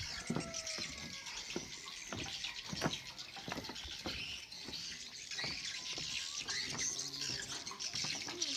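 Footsteps on a wooden plank boardwalk: the loose, weathered boards knock under each step at a walking pace. Birds chirp over a steady high background hiss.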